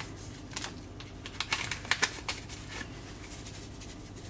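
Crinkling and light clicks from a sachet of dried yeast and thin plastic gloves as the yeast is shaken out into a bowl of flour. The crackles come thickest in the first two seconds or so, then thin out.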